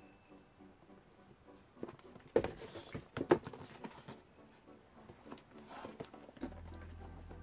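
Football boots being handled in their box and packaging: scattered light knocks, clicks and rustles, the loudest about two and a half and three and a half seconds in. A low steady hum comes in near the end.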